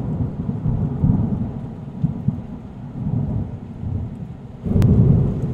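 Thunderstorm sound effect: thunder rumbling over a steady hiss of rain, with a sharp crack of thunder near the end followed by a louder rumble.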